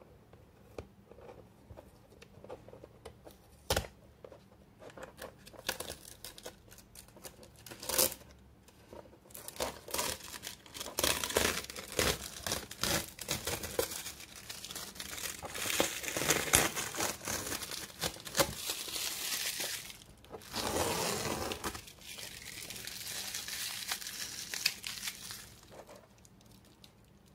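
Foil transfer sheet crinkling and masking tape being peeled off a cardboard box, with a few sharp snaps at first and then dense irregular crackling. Near the end come two longer stretches of steady tearing noise as the tape strips pull away, stopping about a second before the end.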